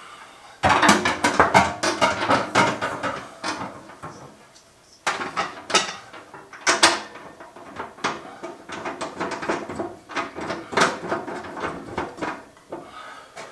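Metal parts and bolts rattling and clicking as they are handled, in several dense bursts of clatter with short pauses between.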